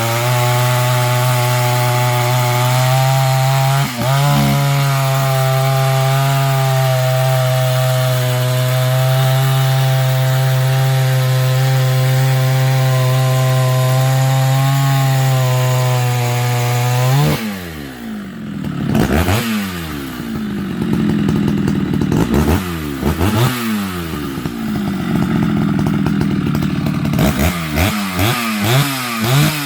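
Sachs Dolmar 153 chainsaw's 100 cc two-stroke engine held at steady high revs for about seventeen seconds, with one brief dip near four seconds in. Then the throttle is let off and the engine is revved up and down repeatedly.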